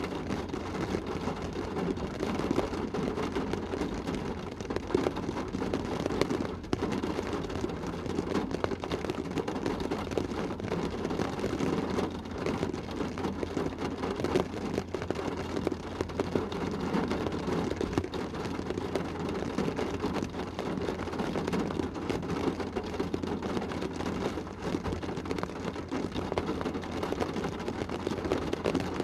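A rain shower falling on a car's roof and windows, heard from inside the car: a steady dense patter of drops with a low steady hum underneath.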